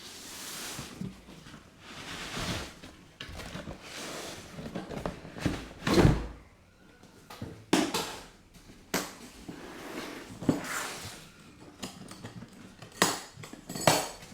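Box and packaging of a rotary hammer being opened and handled: rustling and sliding with knocks and sharp clicks, the loudest a thump about six seconds in.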